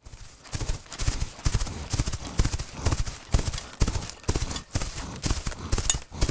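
Horse hoofbeats: a fast, uneven run of hard clip-clop strikes, several a second, starting abruptly.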